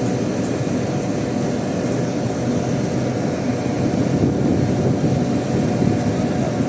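BlueStar ductable air conditioner's outdoor unit running with a steady hum, its compressor working after the R22 charge with suction pressure around 55 psi.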